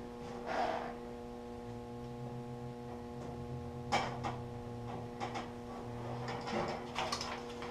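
Steady electrical hum with a few faint rustles and light taps as a sticker is peeled and pressed onto a toolbox.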